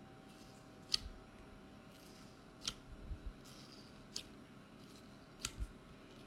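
Foam-bead slime (floam) pressed and squeezed by fingers, giving sharp, crisp crackling clicks, about seven scattered irregularly, some with a soft low thud as the hand presses down.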